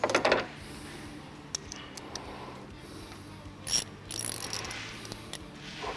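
Metal tools and fittings being handled in an engine bay during a hose install: sharp clicks and rattles, loudest at the start and again just before four seconds in, with a ratchet-like mechanical character.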